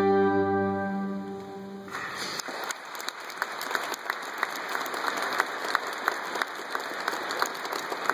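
Pipe organ and violin holding a final chord: the organ's low bass note drops out about a second in, and the chord stops about two seconds in. Then the audience applauds with steady clapping.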